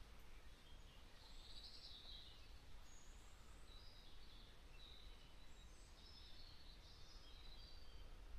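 Faint, distant songbirds giving scattered short chirps and trills over a quiet, steady low rumble.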